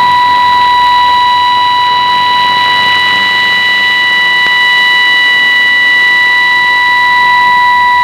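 Shortwave test-transmission test tone, announced at −9 dBFS: several steady pure tones sounding together without a break, received over shortwave radio with a hiss of band noise behind them.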